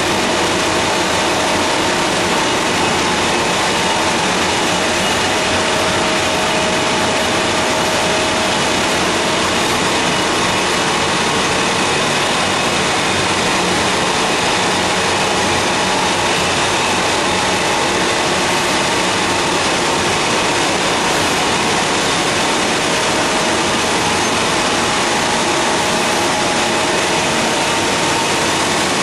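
Fourdrinier paper machine running in production: a steady, dense mechanical noise from its motors, rolls and pumps, with faint humming tones underneath and no change in level.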